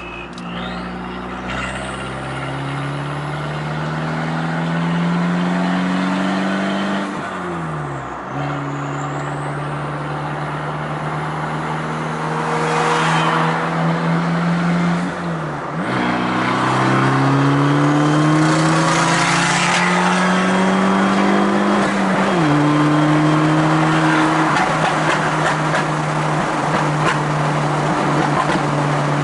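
Fiat Punto Evo 1.4 MultiAir turbo four-cylinder, stage 2 tuned with a Garrett 1446 turbocharger, pulling hard through the gears. The revs climb steadily and fall away sharply at each of three gear changes, then hold steady. Scattered exhaust crackles come after the shifts.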